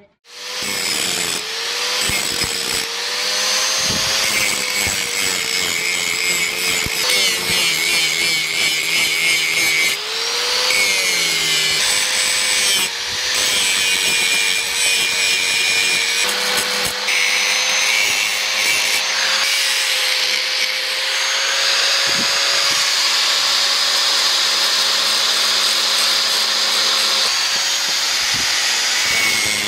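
Electric angle grinder with an abrasive sanding disc grinding a steel knife blank made from a chainsaw bar: loud, steady grinding hiss over a motor tone. The tone sags and recovers as the disc is pressed on, with brief let-ups about ten and thirteen seconds in.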